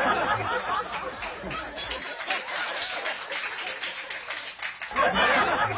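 Live audience laughing and clapping, the claps thickest from about two seconds in.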